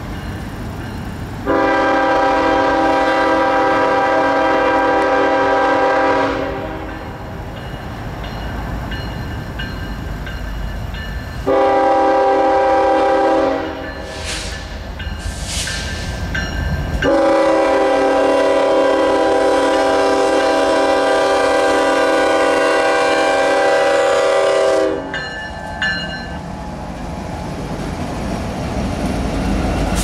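Multi-chime air horn of a CSX GE ES44AH diesel locomotive, sounded in three long blasts with the last the longest, over the low rumble of the approaching train. Near the end the locomotives' engines and wheels rumble louder as they roll past.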